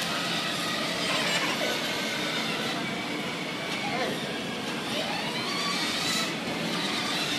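Children's voices and calls over a steady hubbub of chatter and background noise.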